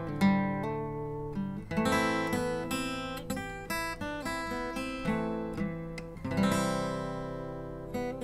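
Acoustic guitar music: strummed chords and plucked notes, each struck sharply and left to ring out.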